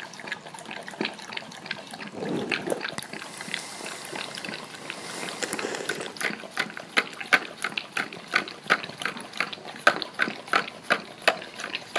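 Golden retriever licking yogurt out of a small plastic cup: wet lapping and smacking clicks, settling into a steady rhythm of about three licks a second in the second half.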